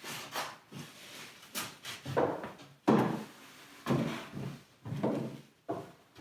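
A fully loaded wooden Dutch tool chest being picked up and moved: a string of separate wooden knocks, creaks and scrapes.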